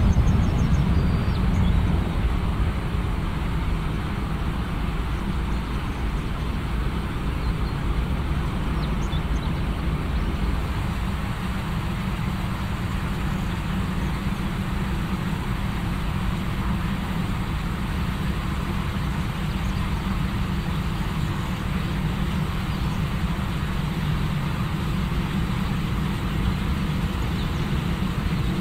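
Twin-engine jet airliner on its landing roll: a loud, deep engine rumble that eases over the first few seconds, then holds steady as the plane slows down the runway.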